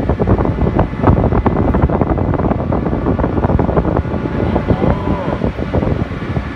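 Steady low hum of a passenger ferry's engines, with passengers' voices chattering over it.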